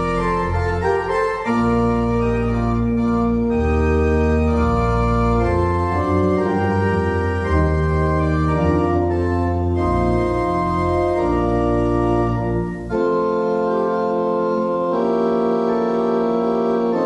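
Church organ playing a slow piece of sustained chords over deep pedal bass notes. About 13 seconds in there is a brief break in the phrase, and the chords carry on without the pedal bass.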